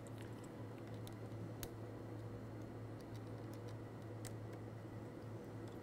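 A handful of faint, spaced-out clicks and ticks from the tip housing assembly of a liquid-handling instrument being handled and adjusted by hand, over a steady low hum.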